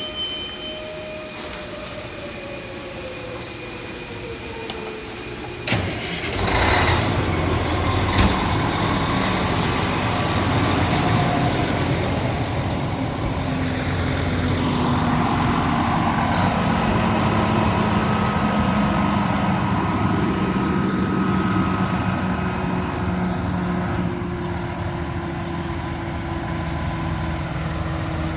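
Fire truck's engine starting about six seconds in with a sharp burst, then running steadily, its pitch slowly sinking. Before it starts, a slowly falling tone.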